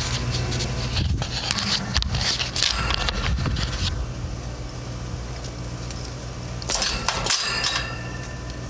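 Clattering and rattling of tools and metal parts being handled, in two bouts, over a steady low machine hum.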